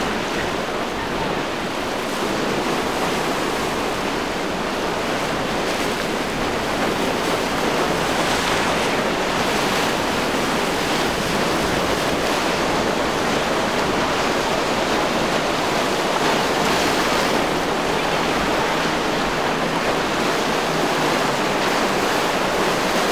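Steady rush of choppy surf and breaking waves, with wind blowing on the microphone.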